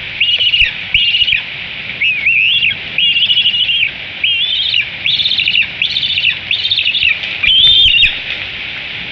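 Juvenile bald eagle giving a run of about ten high, piping food-begging calls, each with a short upward lilt, that stop about eight seconds in. A steady hiss of rain lies behind them.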